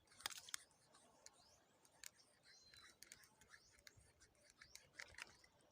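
Near silence with faint, scattered sharp clicks and thin, high chirping glides.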